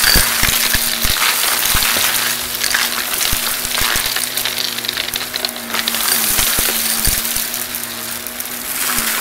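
Shark Navigator XL upright vacuum running steadily while sucking up a pile of confetti, glitter and small debris, with many sharp clicks and rattles as the bits are pulled in.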